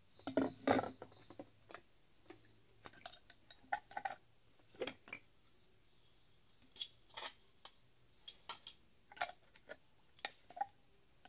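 Pipe fittings for a ram pump (elbows, tees, reducers, pipe pieces) being handled and set against each other: a string of irregular clicks and knocks, a few with a brief ring.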